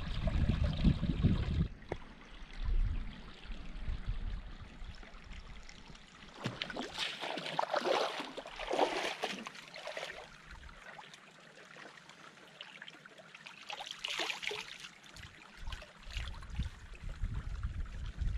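Small desert creek trickling and splashing over rocks, swelling twice and then easing. A low rumble covers it for the first couple of seconds and returns near the end.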